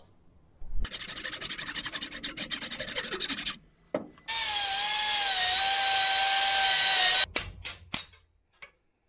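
A handsaw cutting through the old wooden handle of a rounding hammer with quick rasping strokes, then a drill whining steadily as it bores out the wood left in the hammer's eye, stopping suddenly, followed by a few sharp knocks.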